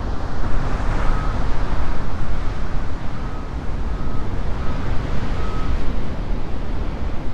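Heavy ocean surf breaking against rocks and shore: a loud, continuous wash of noise with a deep rumble, as wind buffets the microphone.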